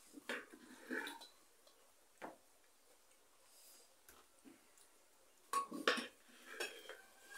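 A steel spoon clinking and scraping against an aluminium pressure cooker and a plate as rice is served, in short scattered knocks with the loudest cluster near the end.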